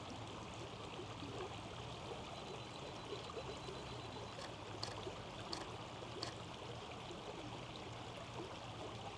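A creek's water running steadily, with a few faint clicks near the middle.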